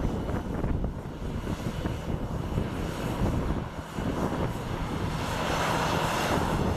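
Airliner engine noise, a broad rush over a low rumble that grows louder toward the end.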